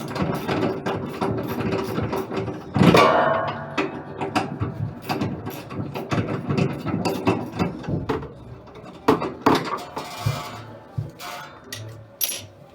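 Hand tools clicking and clanking on washing-machine transmission parts in irregular strokes, with a louder knock about three seconds in.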